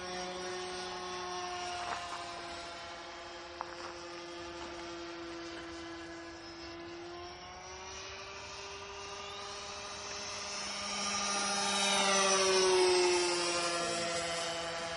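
Radio-controlled scale model Mitsubishi J2M3 Raiden in flight, its motor and propeller droning steadily at one pitch. Near the end it passes close and grows louder, and its pitch drops as it goes by.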